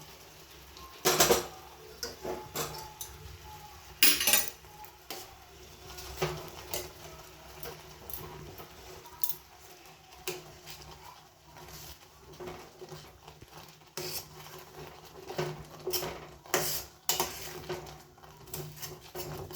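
A spoon stirring and scraping in a pan of sago cooking in milk and jaggery, with irregular clinks and knocks against the pan. The loudest knocks come a little after one second and at about four seconds, with another cluster late on.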